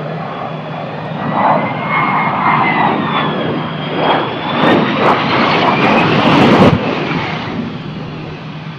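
Harrier jump jet's Pegasus turbofan running at high power in a hover: a loud rushing jet roar with a high whine that slides up and down in pitch, getting rougher with crackles and then dropping off suddenly about two-thirds of the way through.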